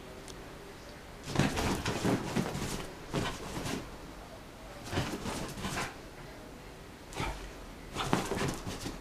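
A basenji rolling, scrambling and rubbing itself on a duvet to dry off after a bath. The bedding rustles and thumps in about five bursts, each lasting up to a second or so.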